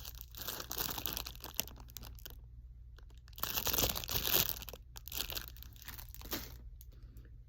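Crinkly packaging rustling and crackling as items are handled and unwrapped, louder for about a second around the middle.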